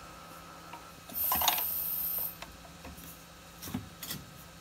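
A homemade metal valve key being fitted over the handwheel of a gas cylinder valve: a scraping clatter of metal on metal about a second in, lasting about a second, then a couple of light taps near the end.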